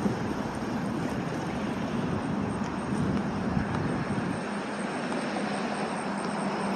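Steady rushing road noise of a Kingsong S22 electric unicycle rolling over asphalt, its tyre noise mixed with wind on the microphone. The deep rumble drops away about four seconds in.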